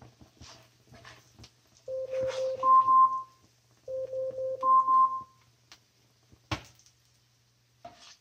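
Alexa smart speaker's timer alarm chiming: a lower note followed by a higher note, heard twice about two seconds apart and starting again at the end. A single sharp click about six and a half seconds in.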